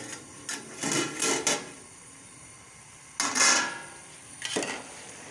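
Metal slotted spoon lifting an aluminium lid off a large aluminium cooking pot, then scraping and knocking against the pot as it stirs pulao rice whose water has dried off. The loudest sound is a clatter with a brief metallic ring a little past three seconds in.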